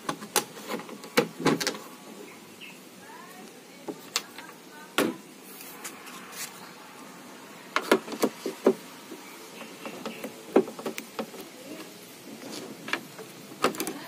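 Irregular clicks and taps of a screwdriver working at the seam of a Sharp twin-tub washing machine's plastic top panel, prying it loose. The taps come in small clusters, the loudest about a second in, around five seconds in and around eight seconds in.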